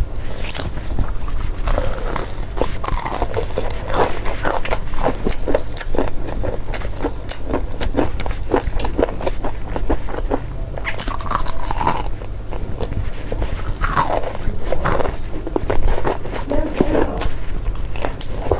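Close-up mouth sounds of eating crispy fried chicken: repeated crunchy bites into the fried coating and chewing, with many short crackles.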